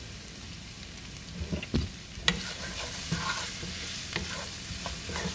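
Sliced smoked sausage, onions and green bell pepper sizzling in a frying pan as a wooden spatula stirs them, with a few sharp knocks about two seconds in.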